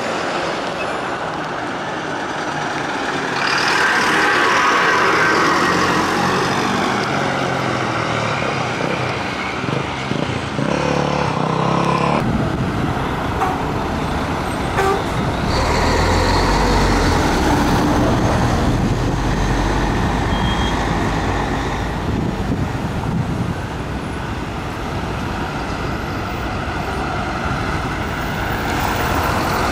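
City buses driving in street traffic, heavy diesel engines running with road noise. About twelve seconds in the sound changes abruptly and becomes deeper and heavier.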